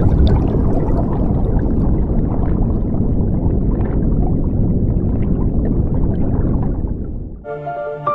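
Underwater rushing and bubbling, a steady low noise of churning water, that fades about seven seconds in as soft music with steady held notes takes over.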